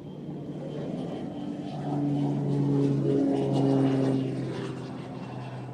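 An aircraft passing by: its engine drone swells to a peak about three to four seconds in, drops in pitch as it goes past, then fades.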